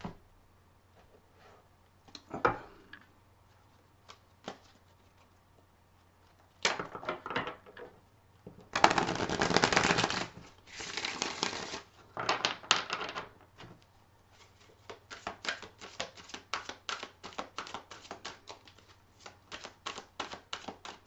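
A deck of tarot cards being shuffled by hand. There are a few taps at first, then two dense riffling bursts about nine and eleven seconds in. After that comes a long run of quick card taps from an overhand shuffle.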